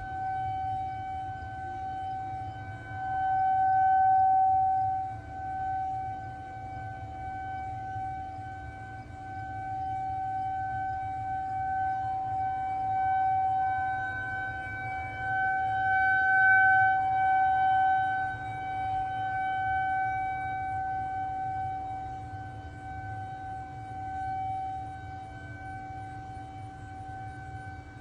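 Federal Signal 2001-SRNB outdoor warning siren sounding a steady alert tone, holding one pitch while its loudness swells and fades every few seconds as the rotating horn sweeps around.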